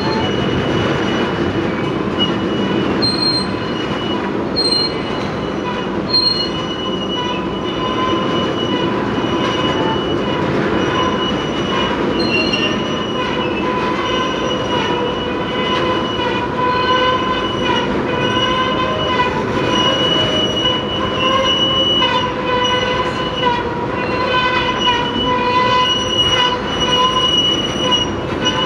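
Freight train of tank cars rolling past, wheels rumbling on the rails with a steady high-pitched wheel squeal that grows stronger after several seconds.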